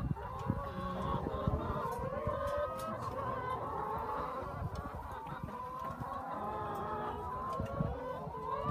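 A flock of laying hens clucking and calling, many voices overlapping and rising and falling in pitch, with low rumble and scattered knocks beneath.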